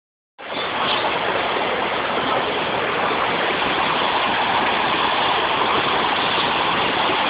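Floodwater rushing across a road in a steady, even roar, after a brief dropout at the start.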